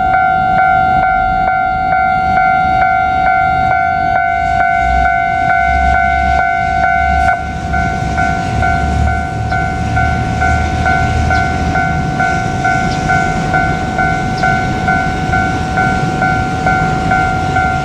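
Japanese level crossing alarm ringing steadily, its electronic bell pulsing about twice a second, while a KiHa 200 diesel railcar passes with a low engine rumble from about four to twelve seconds in.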